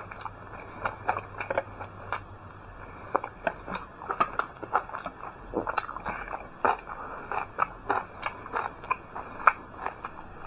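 Close-miked chewing and biting as a person eats stuffed steamed buns with raw chilies: irregular short wet mouth clicks and crunches, a few each second.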